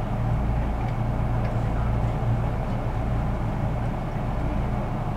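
Steady low hum and rumble heard inside the passenger car of a 183 series electric train at a station platform.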